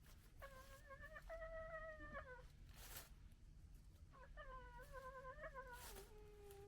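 Red fox vixen gekkering at another fox: two drawn-out, high, wavering calls, the second ending on a lower held note.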